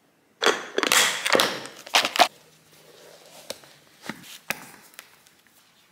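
Sneakers being pulled on and laced: about two seconds of loud rustling and knocking, then a few scattered light taps.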